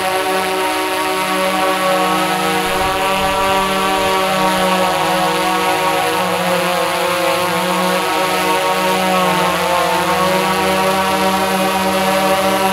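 Tarot X8 octocopter's eight motors and DJI 1552 propellers hovering: a loud, steady multi-tone drone whose pitch shifts slightly as the motor speeds adjust.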